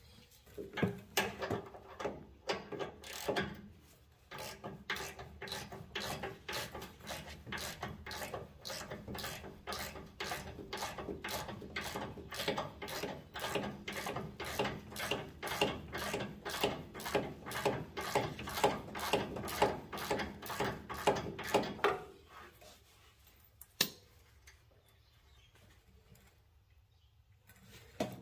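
Hand ratchet wrench clicking in quick, even strokes, about two to three a second, while tightening fasteners on newly fitted tie rod ends; it stops a few seconds before the end, followed by one sharp click.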